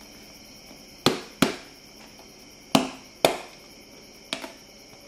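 Sharp knocks on a hard plastic tub, in three quick pairs: two about a second in, two near the middle, and two lighter ones near the end.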